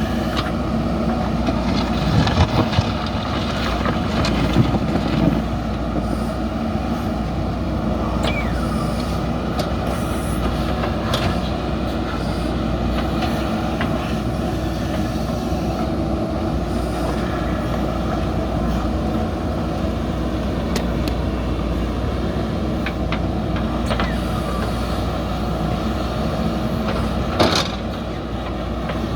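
JCB backhoe loader's diesel engine running steadily under work, with a few sharp knocks: one cluster a couple of seconds in, another around five seconds in, and one near the end.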